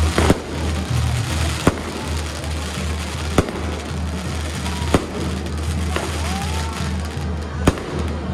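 Aerial fireworks shells bursting overhead: five sharp bangs a second or two apart. Underneath is loud music with a heavy, pulsing bass line.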